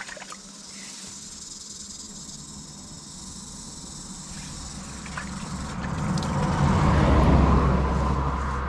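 A vehicle passes on the road, its low rumble and tyre noise swelling about two-thirds of the way in and fading near the end, over a steady chirring of insects.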